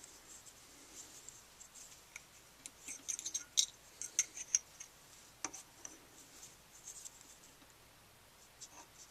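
Faint, light clicks and scratches of a small measuring tool and a marker handled against a metal workpiece while it is measured and marked. A cluster comes about three to four and a half seconds in, and a single sharper click about five and a half seconds in.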